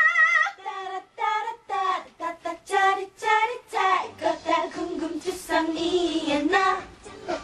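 Female voices singing live into microphones: a held note with vibrato that ends about half a second in, then quick, short sung phrases.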